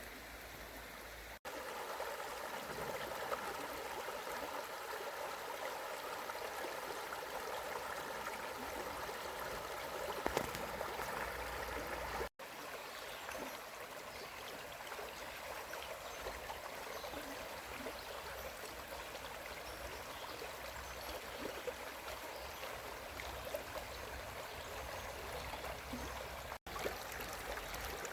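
Small woodland stream babbling steadily over rocks, with a gurgling tone in the first part; three brief silent gaps break it.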